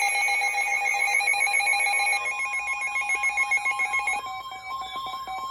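Emergency alert attention tones from a weather radio: steady electronic tones sounding together. The lower tone stops about two seconds in while the higher one carries on, growing fainter from about four seconds in.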